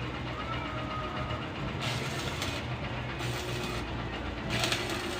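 An engine running steadily with a low drone, with short bursts of hiss about two, three and four and a half seconds in.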